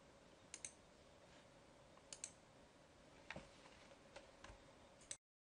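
Faint computer mouse clicks, several of them quick double clicks, over a low steady hum. The sound cuts off to silence about five seconds in.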